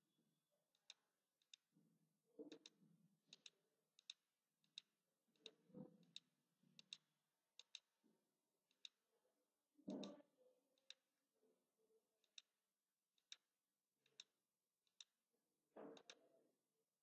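Computer mouse clicking: single sharp, faint clicks at irregular intervals as anchor points are placed one by one, with a few soft, duller knocks between them.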